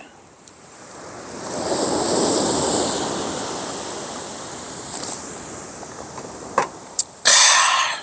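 Sea waves breaking on a sandy beach: one wash of surf swells up about two seconds in and fades slowly. A few light clicks follow, then a short, loud, breathy burst near the end.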